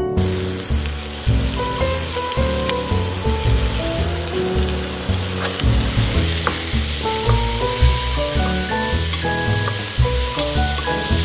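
Chopped onions and leeks sizzling as they fry in oil in a pot, stirred with a wooden spoon. A steady hiss plays under background music with a repeating bass line.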